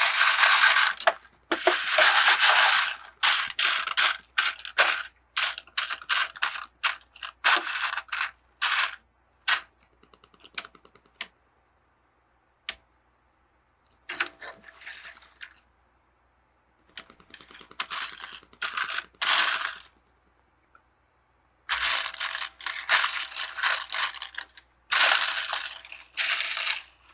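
Small plastic Lego pieces clattering and rattling as hands sift through them in search of a part, in bursts of quick clicks with short pauses between, the longest pause about ten seconds in.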